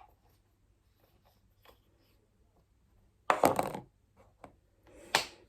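Quiet room, then a short clatter of a handled object a little over three seconds in and a sharp knock just before the end.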